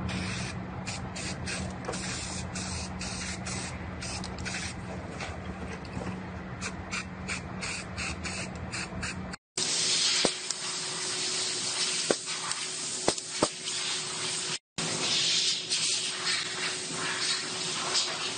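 Short hisses of an aerosol can of weld-through primer being sprayed. Then a louder, steadier hiss from a pneumatic seam sealer gun laying sealer along body seams, with a few sharp clicks.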